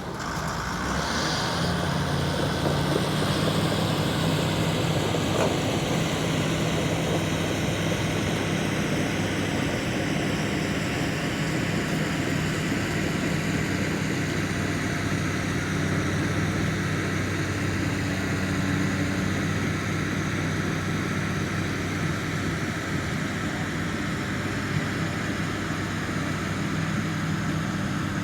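Bulldozer's diesel engine running steadily at an even speed.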